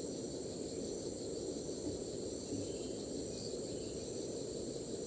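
Steady chorus of forest insects: several high-pitched tones held without a break, over a low, even background noise.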